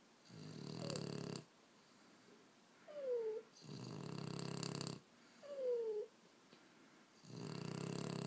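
French bulldog snoring in its sleep: a rough, rattling snore about a second long, three times, each followed by a short whistle that falls in pitch, in a steady rhythm of roughly one breath every two and a half seconds.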